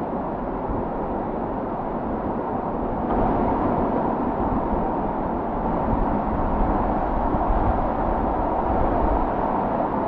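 Steady rushing of a waterfall pouring into a pool, growing a little louder about three seconds in.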